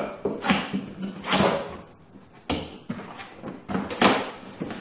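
Cardboard box being opened by hand: a series of scrapes and rustles as the flaps are pulled open, with a sharp crack about halfway through.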